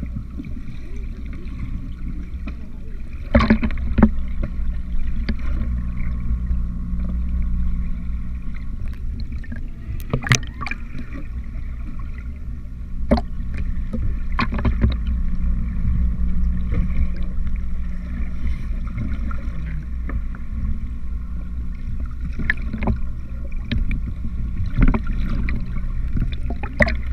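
Muffled underwater sound picked up through a GoPro's waterproof housing: a steady low rumble with scattered sharp clicks and knocks.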